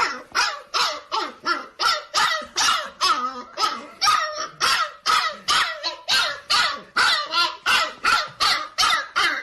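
A dog barking over and over in an even rhythm, about two to three barks a second.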